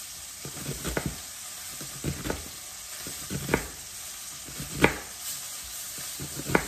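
Kitchen knife chopping through an onion onto a plastic cutting board: about a dozen irregular sharp knocks, the loudest about five seconds in, over a steady hiss.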